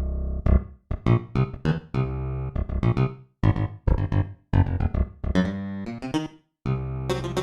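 A Roland D-550 linear-arithmetic synthesizer playing a patch: a run of short notes with sharp attacks, some held longer over a low sustained tone, in phrases broken by brief silences.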